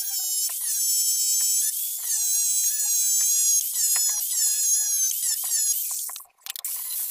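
Angle grinder cutting through a flat steel bar: a high whine whose pitch sags and recovers again and again as the disc bites into the metal. The sound breaks off briefly about six seconds in, then resumes.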